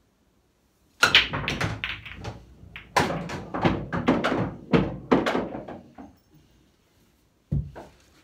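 Pool break-off shot: the cue strikes the cue ball about a second in, then the pack of red and yellow pool balls clacks apart in a rapid rattle of ball-on-ball clicks and cushion knocks that fades out over about five seconds. A single dull thump comes near the end.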